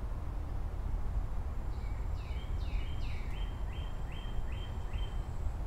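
A songbird singing a run of about ten short down-slurred whistled notes, roughly three a second, starting about two seconds in, over a steady low rumble and a thin faint high whine.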